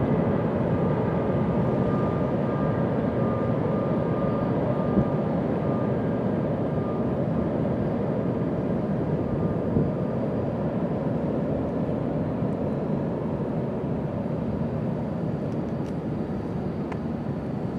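Train crossing a steel truss railway bridge, a steady rumbling drone with a faint whine that fades out about halfway through.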